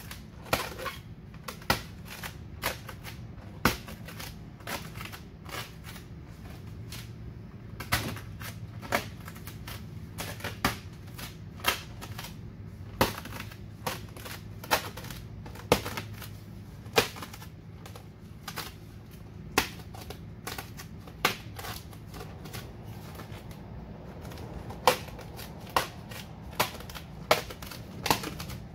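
Cast vinyl wrap film being pulled up from a boat's hull and re-laid by hand, snapping off the surface in sharp cracks at irregular intervals, roughly one a second, over a steady low hum.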